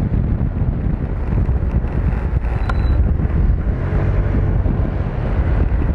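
Heavy wind buffeting on the microphone of a moving motorcycle, over the low rumble of its engine.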